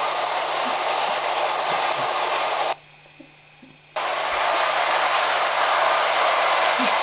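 Steady, even rushing noise like hiss or wind, with a faint low hum beneath. It cuts out abruptly for about a second near the middle, then comes back.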